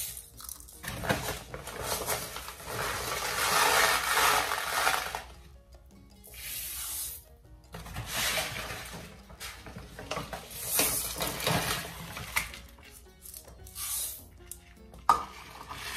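Uncooked glutinous (sticky) rice poured from a cup into a pan of just-boiled water in several pours: a rushing hiss of grains pattering into the water. The first pour lasts about four seconds and the later ones are shorter.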